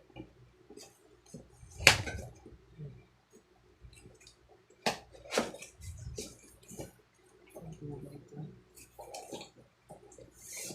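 Handling noises from opening a boxed power-tool set: scattered clicks and knocks with light rustling in between. The sharpest knock comes about two seconds in, and two more follow around five seconds in.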